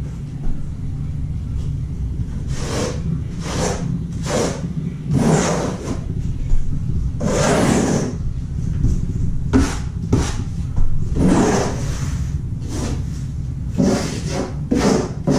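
Irregular rough scraping strokes, about a dozen, some short and some drawn out, from a trowel spreading and smoothing thin-set mortar while Kerdi-Band is embedded along the shower pan's perimeter seams. A steady low hum runs underneath.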